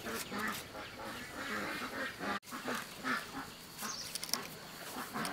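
Farm poultry calling repeatedly in short calls.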